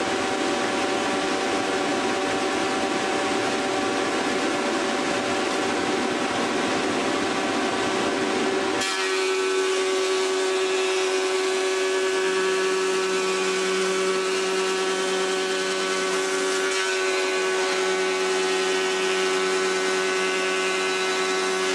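Logosol H410 thickness planer running with a steady whine as a board is fed through and planed down to thickness. About nine seconds in, the sound changes abruptly: the low rumble drops away and the whine stands out more clearly.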